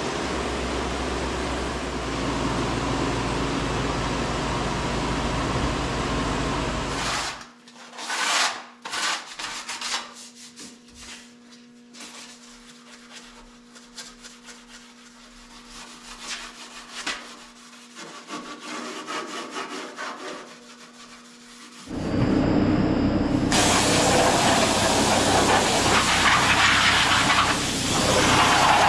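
A pickup engine runs steadily and cuts off about seven seconds in. Scattered clicks and knocks follow over a steady low hum. For the last seven seconds there is loud, rough abrasive rubbing: the radiator support bars being scuffed down for primer.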